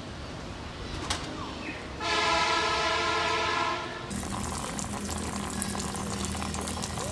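A horn sounds a steady chord of several tones for nearly two seconds, then cuts off. About a second later, water spraying from a pipe outlet starts as a steady hiss with a low hum under it.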